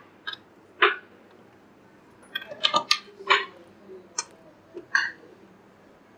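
Banana-plug test leads being pushed into the sockets of an amplifier trainer board: a string of short clicks and knocks, with a cluster of them about two and a half to three and a half seconds in.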